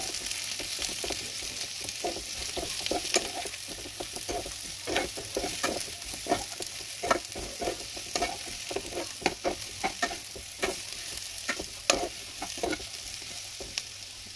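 Sliced raw mango frying in hot oil in a nonstick pan with a steady sizzle, while a metal spoon stirs it, scraping and tapping against the pan in repeated irregular strokes.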